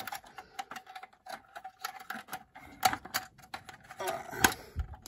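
Irregular small clicks and taps of fingers working the plastic rear doors of a toy ambulance and the metal twist ties holding them shut, with a couple of louder clicks about three seconds in and near the end.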